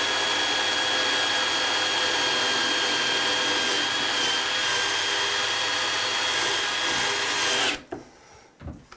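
Cordless DeWalt drill with a glass-and-tile bit grinding a hole into ceramic wall tile: a steady whine over grinding noise. It stops suddenly about eight seconds in, with the bit not yet through the layer behind the tile.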